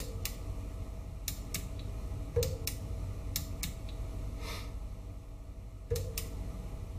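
Opened Korad KA3005D bench power supply humming steadily, with sharp clicks coming mostly in pairs about a second apart and two louder thumps, one about two and a half seconds in and one about six seconds in. The relay click that should come at switch-on is missing, which the owner takes for a relay stuck on the highest transformer winding or a failed output relay.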